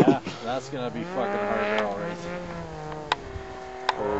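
Snowmobile engine running at high, steady revs, its pitch wavering slightly, with two sharp clicks near the end.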